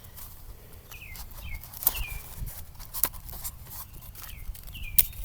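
Scotch tape being torn and pressed onto cardboard tubes: a scatter of short crackles and taps. Birds give brief falling chirps several times in the background.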